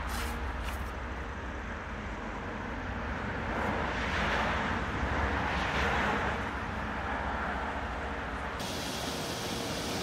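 Wind buffeting the microphone outdoors, with a steady low rumble. A broad rushing noise swells toward the middle and then eases off.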